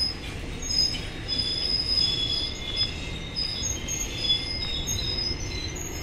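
Passenger train coaches rolling past, their steel wheels squealing in several high, overlapping tones that come and go, over a steady low rumble of the running gear.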